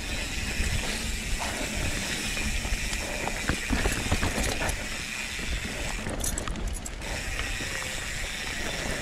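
Evil Wreckoning mountain bike running fast down a dirt trail: tyres on the ground, a low rumble, and the chain and frame clattering in many small knocks, with a short burst of brighter hiss about six seconds in.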